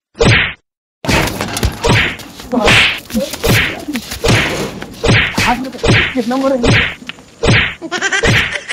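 Slap and punch hits landing in quick succession, about a dozen at roughly two a second, as a man is beaten.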